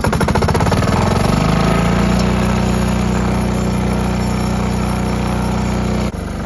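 Single-cylinder Yanmar diesel engine catching and picking up speed over about two seconds, then running steadily. The level drops suddenly near the end.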